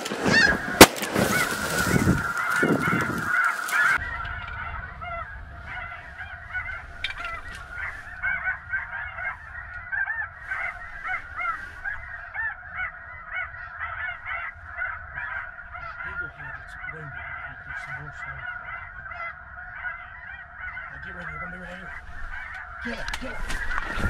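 A flock of snow geese calling without a break, a dense chorus of short, high honks. A single shotgun shot goes off about a second in.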